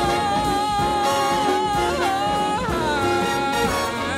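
Jazz big band recording near the close of an arrangement, with one long high note held over the band for about three and a half seconds, bending in pitch midway before it stops.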